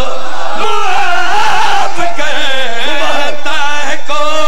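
Men chanting a devotional qasida refrain together into microphones, unaccompanied, in long wavering drawn-out notes, loud through the loudspeakers.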